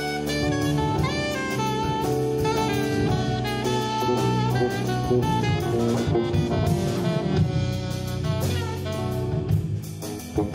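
Live jazz band playing: a saxophone leads with a line of quick notes over drum kit, keyboard and a low bass line.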